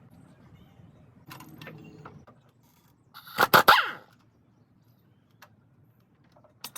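A dog barking in a short run of two or three quick barks about three seconds in.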